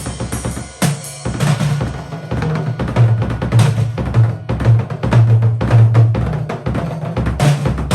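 Compact shell-less drum kit (hoops and heads only) being played: a busy stream of drum strikes, with low drum tones ringing out from about a second and a half in.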